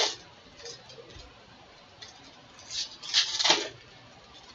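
Foil wrappers of Bowman baseball card packs crinkling and tearing as the packs are opened by hand, in short bursts, the loudest about three seconds in.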